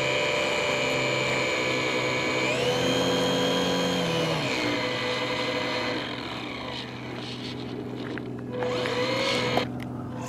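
RC airplane's motor and propeller whining steadily. The pitch rises about two and a half seconds in and drops back two seconds later as the throttle changes. It then grows quieter, with a brief louder pass near the end.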